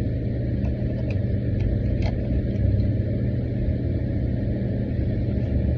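Steady low rumble of an idling motor vehicle engine, with a few faint clicks.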